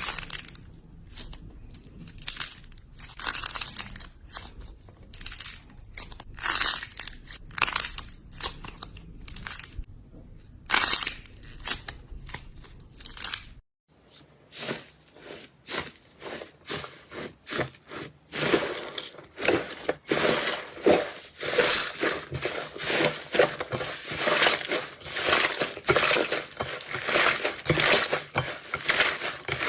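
Slime being squeezed, pressed and stretched by hand, giving off irregular crackling and popping clicks. There is a brief break about halfway through, after which the crackling comes thicker and faster.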